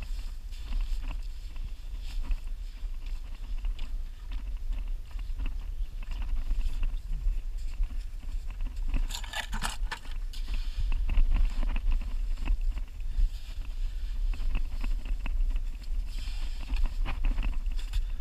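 Gloved hand scraping and scooping wet, gritty sand out of a clam hole: a string of short crunching scrapes over a steady low wind rumble on the microphone, with a brief louder rustle about halfway through.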